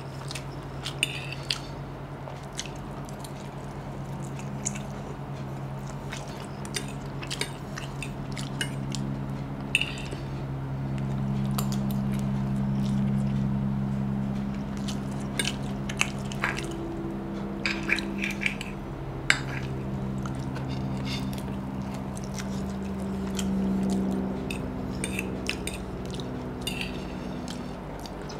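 Close-up eating sounds: a metal fork clinking and scraping on a plate, with noodles being slurped and chewed, in scattered sharp clicks and short wet bursts over a steady low hum.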